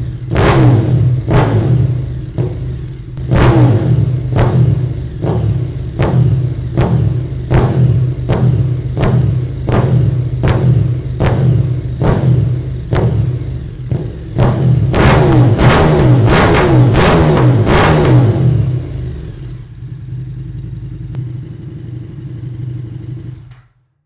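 KTM 1290 Super Duke R's V-twin through an Akrapovič Evo Line titanium full exhaust, revved in a string of sharp throttle blips, close to two a second at times, the revs dropping away after each. It then holds higher revs for a few seconds, settles to a lower, steadier running, and stops abruptly near the end.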